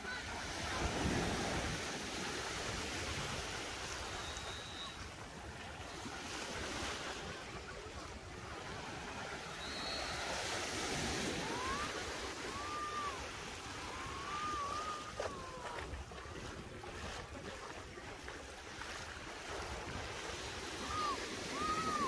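Sea waves washing onto a sandy beach, the surf swelling louder about a second in and again around ten seconds in.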